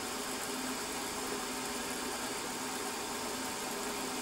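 Milling machine spindle running steadily at low speed with a wobbler edge finder in it, a steady hum with faint even tones.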